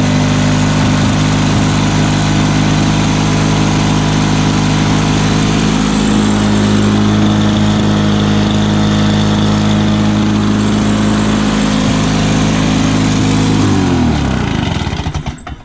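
Two-stroke Lawn-Boy walk-behind mower engine running at a steady speed, then shut off about fourteen seconds in, its pitch falling as it winds down. It is running excellently, with no exhaust leaks.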